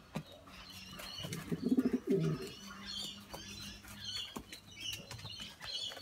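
Domestic pigeon cooing: a low, warbling coo about one and a half seconds in, drawn out into a steady low hum until about four seconds. Faint high chirps and light taps come and go throughout.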